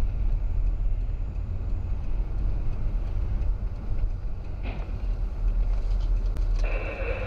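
Steady low rumble of a car's engine and tyres heard from inside the cabin as the car pulls away slowly in traffic. A brief higher-pitched sound comes in near the end.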